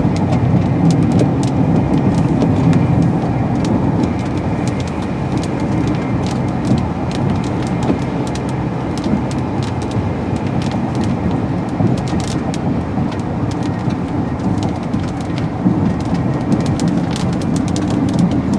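Steady road and engine noise heard inside a car driving on a wet road, with rain ticking on the windshield and roof.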